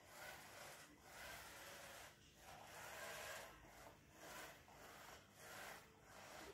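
Faint whirring hiss from the small motors of a homemade robotic sweeping truck, running in stretches of about a second broken by short gaps.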